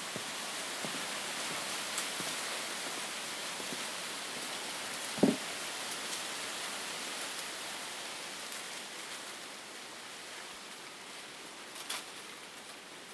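Steady outdoor rustling hiss of a subtropical forest, easing off slightly toward the end. A single dull thump comes about five seconds in, and there are a couple of faint sharp ticks.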